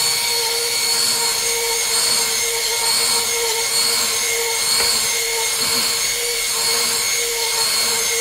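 Drill-driven rotary ski brush spinning against a waxed ski base, a steady motor whine with the hiss of bristles sweeping the base. The brush is making repeated passes over freshly applied FastStik shop-block wax.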